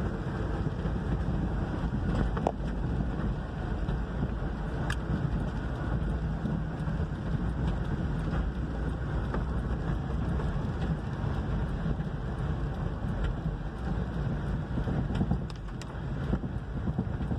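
Steady road and engine rumble heard inside a moving car on a rain-wet road, with a few light ticks of raindrops on the windshield.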